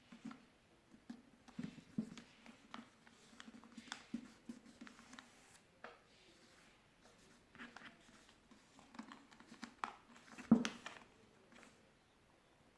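A sheet of paper being handled and folded: faint scattered crinkles and creasing taps, with one sharper snap about ten seconds in.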